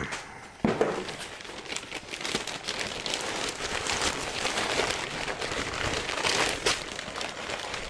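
Brown kraft packing paper crinkling and rustling as a box is slid out of its shipping package and pulled about. It is a dense, crackly rustle that starts with a sharp crinkle about half a second in and keeps going.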